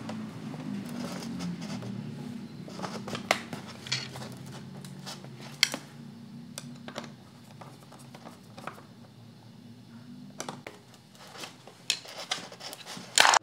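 Scattered clicks, taps and scrapes of a plastic hose, a metal hose clamp and a plastic bottle being handled while the clamp is tightened with a screwdriver, over a low steady hum. A louder clack comes near the end.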